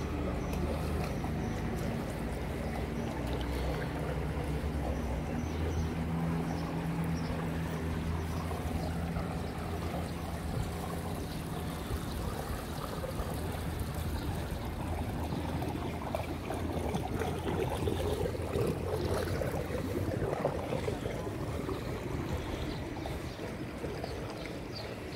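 Swimming pool water running and trickling, with a steady low hum of pool machinery that thins out about halfway through.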